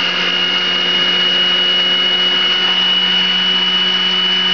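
Food processor motor running steadily at full speed, a constant high whine over a low hum, as it grinds garlic into flour and salt.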